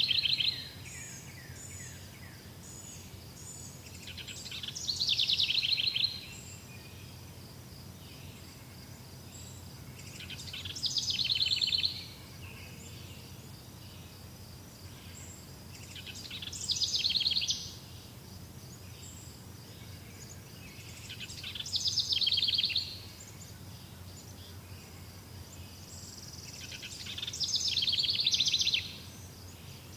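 A songbird singing the same rapid trilled phrase over and over, about every five or six seconds, each phrase swelling for a second or two and then stopping abruptly. Under the song there is a steady low background hum and a faint, thin, high steady tone.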